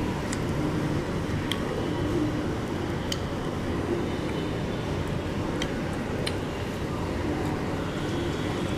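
Steady low rumble of background noise, with a few faint clicks scattered through it.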